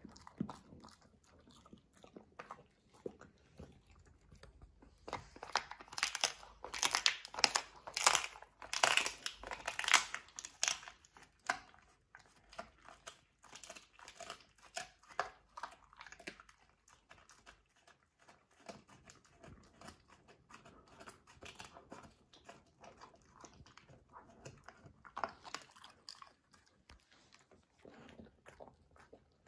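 Labrador–golden retriever mix chewing a dried chew treat: crunching and gnawing with many sharp clicks, loudest and densest for several seconds about a fifth of the way in, then softer and more scattered.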